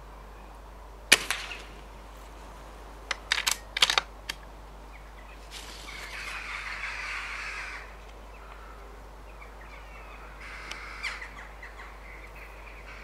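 A single sharp air rifle shot about a second in, followed by scattered short clicks and harsh corvid calls, with a stretch of hissing noise near the middle.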